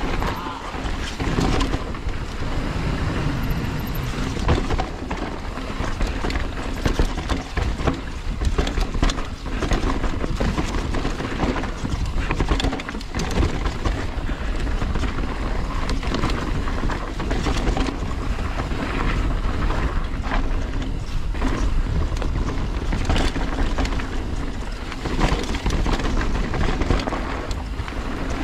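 Mountain bike ridden down a rough singletrack trail: continuous tyre noise on dirt and rock, with frequent knocks and rattles from the bike over roots and rocks.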